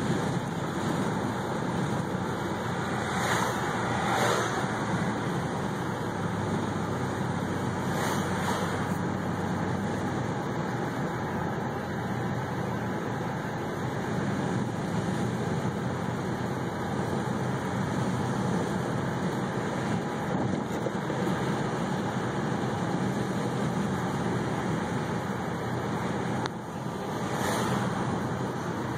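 Steady road noise from inside a moving car: tyres and engine at cruising speed, with three brief louder swells along the way.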